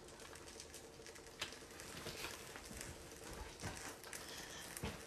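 Faint handling noises: a few light knocks and rustles over a faint steady hum, as someone moves about.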